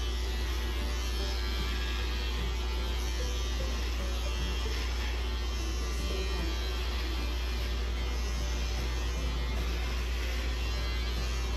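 Electric hair clippers running with a steady buzz as they cut hair.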